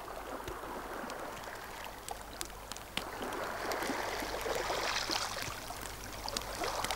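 Soft, steady wash of running or lapping water, swelling a little in the middle.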